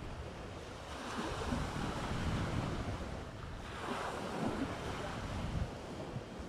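Waves washing onto a beach, swelling twice, with wind rumbling on the microphone.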